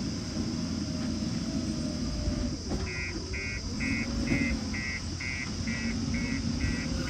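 Backhoe loader's diesel engine running steadily; about three seconds in, a reversing alarm starts beeping, roughly two beeps a second.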